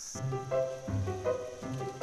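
Background music: a melody of held notes over a low bass line, changing note every fraction of a second.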